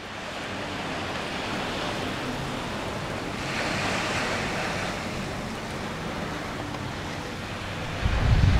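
Surf washing onto a beach: a steady hiss of waves that swells as a wave breaks about three and a half seconds in. Near the end, wind gusts buffet the microphone with a low rumble.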